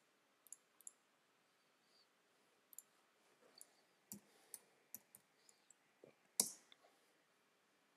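Computer mouse clicks and keyboard keystrokes: a few scattered clicks, then a quick run of key presses typing a short word, with one louder keystroke about three-quarters of the way through.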